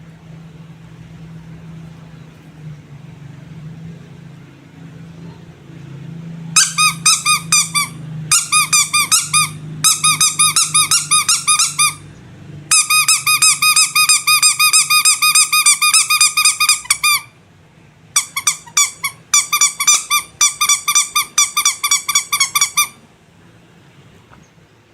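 Rubber squeaky animal toys squeezed rapidly, giving quick trains of short, high-pitched squeaks in several runs with brief pauses between them. The squeaks start about a quarter of the way in and stop shortly before the end.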